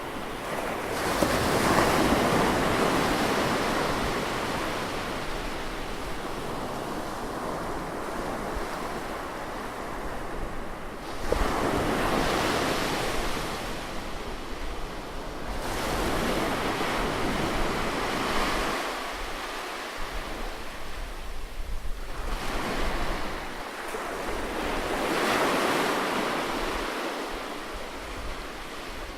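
Ocean surf breaking close by on a beach, each wave surging up with a rush of water and then washing back and fading, a new wave every few seconds.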